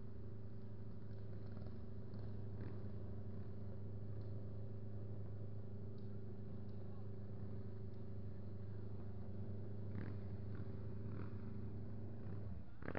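Vintage Alfa Romeo racing car's engine idling steadily, then switched off near the end, its pitch falling as it runs down.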